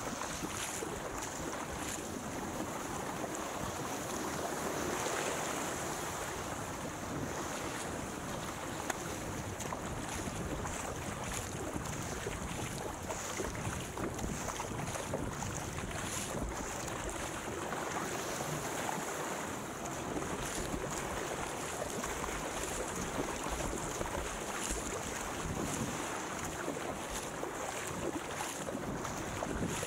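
Wind buffeting the microphone over water splashing and rushing along a surfski's hull as it is paddled through choppy sea; a steady, unbroken rush of noise.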